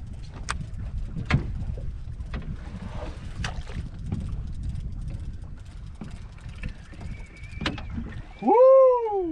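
Wind and water noise around a small fishing boat, with scattered sharp clicks and knocks while a fish is reeled up. A faint thin whine comes in late. Near the end there is a loud call, under a second long, rising and then falling in pitch.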